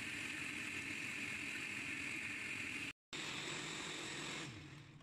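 Kenwood blender motor running at speed, blending cooked rice, sugar and water into a smooth liquid. The sound drops out for an instant about three seconds in, and near the end the motor winds down, falling in pitch, and stops.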